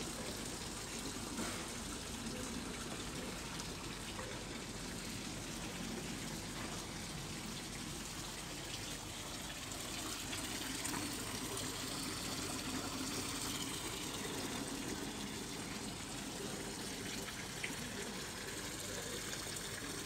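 Steady rushing background noise with no distinct events, the level even throughout.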